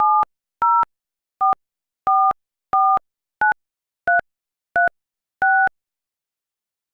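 Touch-tone phone keypad dialling: nine short two-tone DTMF beeps at about one and a half a second, keying the digits 7-0-4-4-4-9-3-3-6, the end of the number 770-444-9336.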